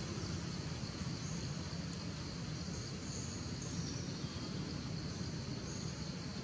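Steady outdoor ambience: a low rumble under a constant high insect drone, with a few faint high chirps in the first half.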